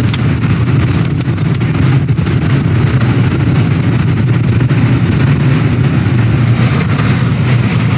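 Tornado-force wind buffeting the armored Dominator 3 storm-chasing vehicle: a loud, steady, low rumble with frequent sharp ticks and knocks of debris striking it.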